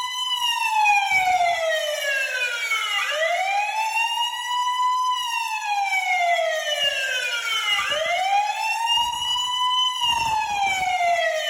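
A siren-like wailing test tone from a DJ sound-check track, its high-frequency test. The tone rises over about two seconds and falls over about three, repeating about every five seconds, with a rich stack of overtones.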